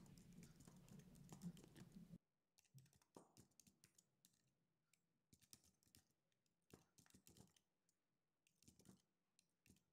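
Faint typing on a computer keyboard: irregular, quick key clicks. A low background hum under the clicks cuts off about two seconds in.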